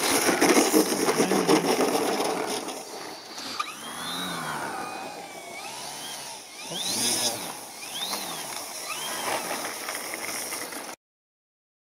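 Radio-controlled model biplane's motor and propeller: loud and steady at first, then revved up and down several times as the plane taxis over snow-covered ice, a whine rising and falling in pitch. The sound cuts off abruptly about 11 seconds in.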